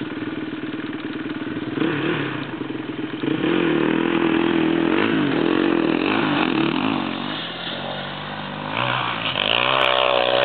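Dirt bike engine idling, then revved. It gets louder about three seconds in as the throttle is worked up and down, eases off for a moment, and revs up again near the end.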